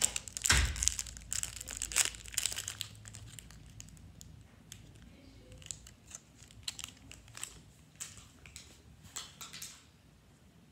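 A hot dog's wrapper being crinkled and torn open, in irregular crackles that are loudest and densest in the first two seconds, then sparser until they stop near the end.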